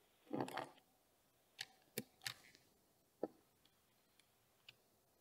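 Faint clicks and taps of small hand tools, a digital caliper and a hex driver, handled against the carbon-fibre chassis of an RC touring car while the front anti-roll bar ball studs are adjusted. A short soft sound near the start, then a handful of sharp clicks, followed by a few lighter ticks.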